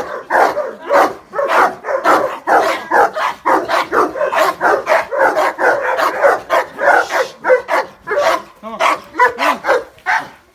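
Dogs barking hard and almost without pause, an alarm reaction to a masked stranger they take for an intruder. The barking thins out near the end.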